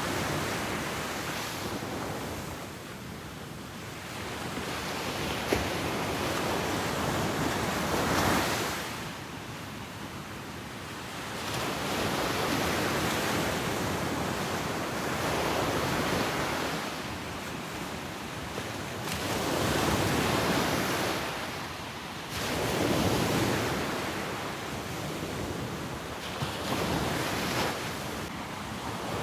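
Ocean waves breaking and washing up the beach in repeated surges every few seconds, each swelling and fading away, with some wind on the microphone.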